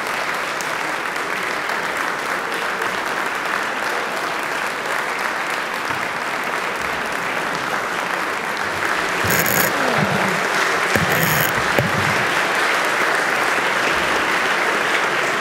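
A large chamber of legislators giving sustained applause, many hands clapping together, growing louder about nine seconds in.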